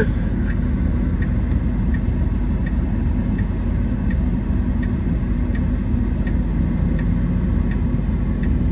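Steady low rumble inside a Tesla car's cabin, with a faint, regular ticking about every two-thirds of a second that fits the car's turn-signal indicator.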